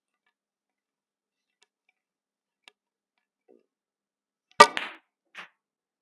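A snooker shot: a faint tap, then one sharp clack of snooker balls a couple of seconds later with a brief ringing tail, followed by a softer knock under a second after.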